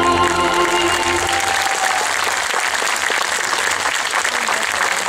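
An audience clapping in a sustained round of applause, with the final held notes of the dance music fading out under it in the first second or two.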